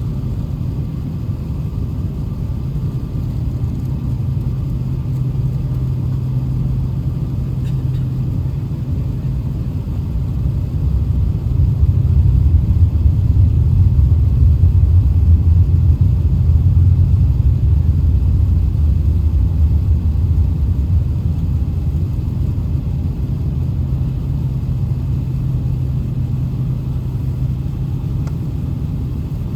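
Steady low rumble inside an Airbus A380-800 cabin on the ground before departure, growing louder for about ten seconds in the middle before settling back.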